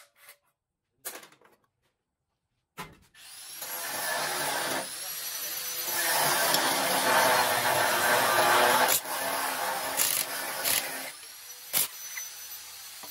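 A few sharp clicks, then a power tool's motor runs continuously for about eight seconds, building up from about three seconds in and dropping away near the end.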